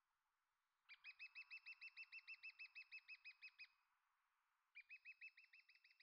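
A bird calling: two faint runs of rapid, evenly repeated high notes, about seven a second, the first lasting about three seconds and the second starting near the end.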